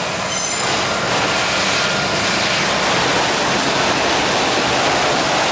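Autorack freight cars rolling past at close range: a steady rush of wheels on rail.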